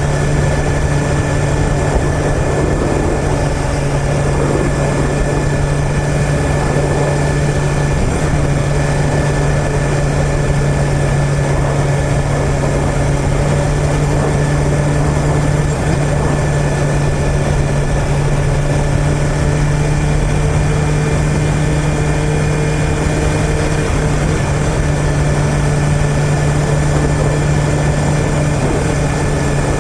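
2021 BMW S1000RR's inline-four engine running at a steady, unchanging pitch under way, over a constant haze of road and wind noise.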